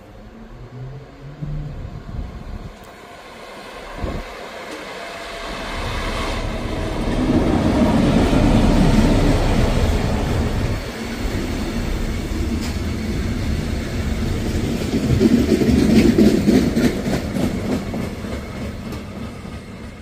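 DB class 218 diesel-hydraulic locomotive passing with a work train: the engine grows louder as it approaches and goes by, then the wagons roll past over the rails, with a second loud stretch about three-quarters of the way through before the sound fades.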